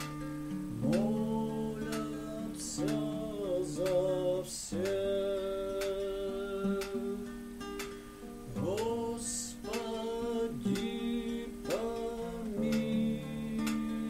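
A man singing a slow song to his own acoustic guitar, strumming chords; his voice slides up into each note and holds it.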